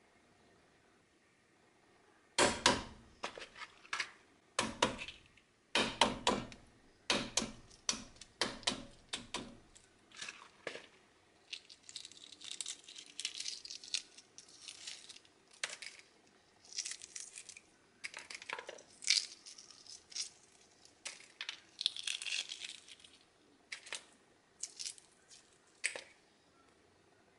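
A steamed hard-boiled egg rapped several times on a hard surface, a run of sharp taps that crack the shell, then the shell crackling and crinkling as it is peeled away by hand.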